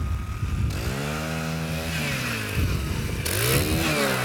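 Gas-powered ice auger drilling a hole through lake ice. The small engine revs up under load, eases off, then revs up again.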